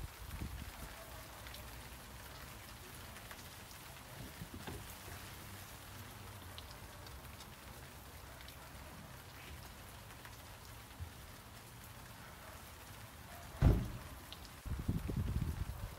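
Steady rain falling, with scattered drops pattering on the wet car and pavement over a low hum. A single sharp thump comes a little before the end, followed by louder irregular bumping.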